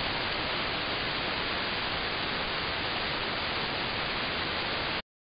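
Steady hiss from a KiwiSDR web receiver tuned to an empty channel at 131.2 MHz in the aircraft band: receiver noise with no station heard. It cuts off suddenly near the end.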